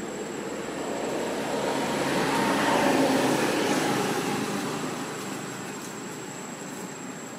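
A vehicle passing by: its broad engine and road noise swells to its loudest about three seconds in, then fades away.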